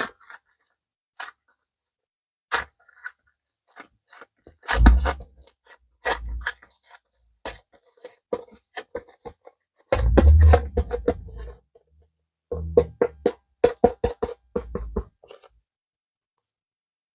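Close-up handling of clay and its packaging: sharp clicks, crackles and soft thumps in short bursts with silence between. The heaviest clusters come about five seconds in and again around ten to eleven seconds.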